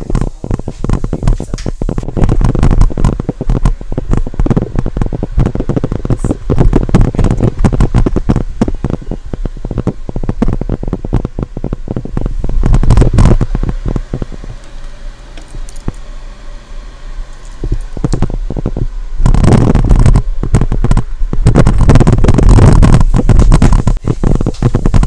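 Loud crackling and rubbing noise on a phone's microphone as the phone is handled and carried, dense with clicks and low rumble. In a quieter stretch in the middle, a low steady hum shows through.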